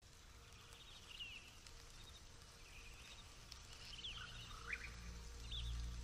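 Faint film soundtrack opening: scattered bird chirps over a low hum, with a deep rumble swelling about five seconds in.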